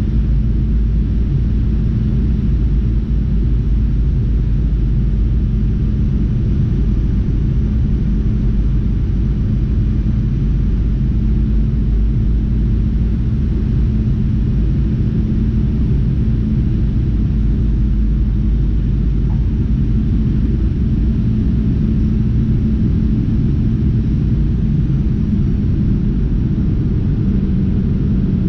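Boeing 737-900ER cabin noise on final approach: its CFM56-7B engines and the rushing air make a steady low rumble with a steady hum under it.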